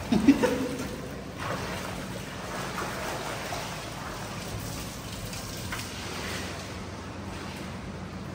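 Steady hiss of splashing, rushing water. A short voice-like sound, falling in pitch, comes right at the start.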